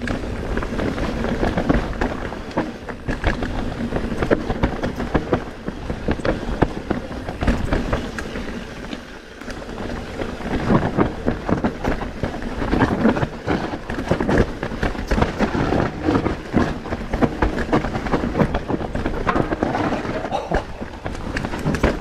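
Forbidden Dreadnought mountain bike descending a rough trail, heard from a chest-mounted action camera: tyres running over rough ground, with dense rattles and knocks from the bike throughout. It eases briefly about nine seconds in.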